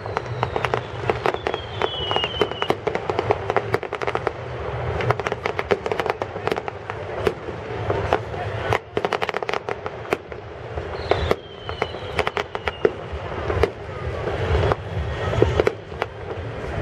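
Fireworks going off in a rapid, continuous run of crackling bangs, several a second, with a couple of short falling whistles.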